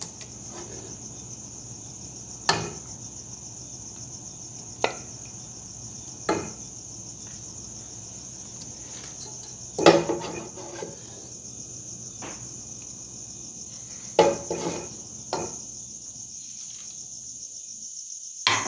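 A metal serving spoon knocks and scrapes against a stew pot and a ceramic plate while stewed liver is dished out, in a few separate clinks with two short clusters. Under it runs a steady high-pitched chirring drone.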